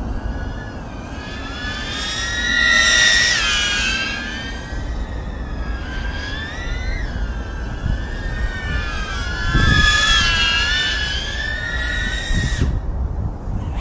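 A 3.5-inch FPV cinewhoop's brushless motors and three-blade props whining in freestyle flight. Several pitches bend up and down together with the throttle, over wind rush on the microphone. The whine drops away briefly near the end, as on a throttle cut.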